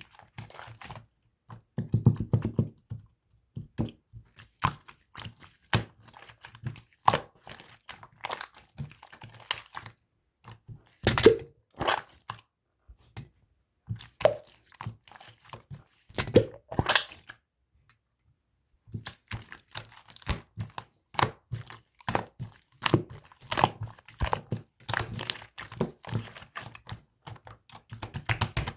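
Hands squishing, folding and pressing a bubble-filled clear slime: irregular runs of sticky clicks and crackling air-bubble pops, with a few duller squelches and a short pause about two thirds of the way through.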